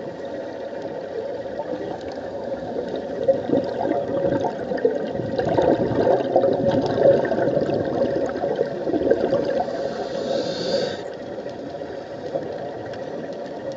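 Underwater sound of scuba divers breathing through regulators: bursts of exhaled bubbles gurgling and rumbling, loudest about halfway through, over a steady low hum. A short hiss about ten seconds in cuts off suddenly.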